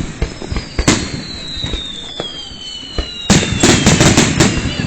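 Fireworks display finale: aerial shells going off with sharp bangs, one at the start and another about a second in, then a rapid cluster of bangs from about three seconds in. Thin whistles glide down in pitch between the bangs.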